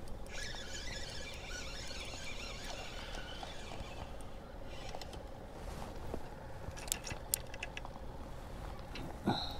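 Spinning reel being cranked, a fast fine ticking for about four seconds as a fish is reeled in on a bent rod, then a few sharp clicks and a brief squeak near the end.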